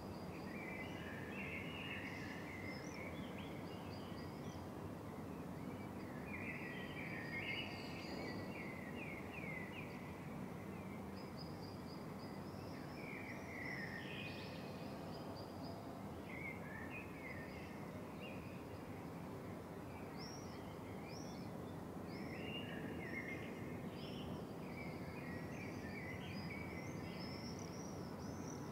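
Faint birds chirping and singing in repeated short phrases over a steady background hiss.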